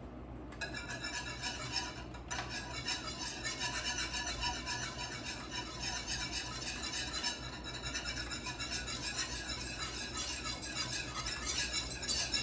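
Wire whisk stirring fast in a saucepan, a quick continuous clatter of the wires against the pot that starts about half a second in. Flour is going in a little at a time, and the mixture is thickening into churro dough.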